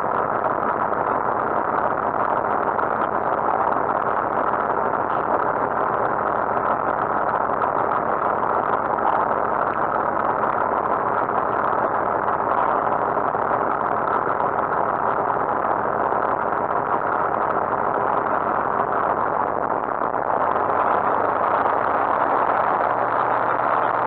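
Rotax 912 four-cylinder engine of a Lightwing GR912 light aircraft idling steadily on the ground, its propeller turning slowly, heard from inside the cockpit. The engine note shifts slightly about twenty seconds in.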